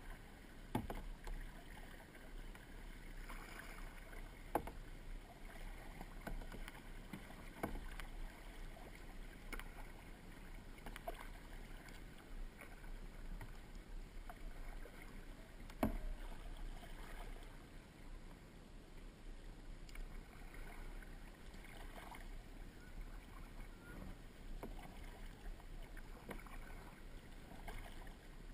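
Kayak being paddled: the paddle blades dip and splash in the water, with a few sharp knocks at irregular moments, the loudest about two-thirds of the way through.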